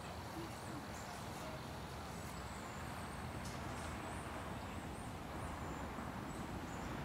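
Quiet outdoor ambience: a steady low hiss and rumble, with faint high bird chirps scattered through.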